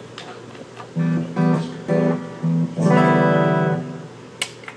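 Guitar playing a short lick in B minor: four quick plucked notes, then a longer held note, an example of half-step bends. Two sharp clicks near the end.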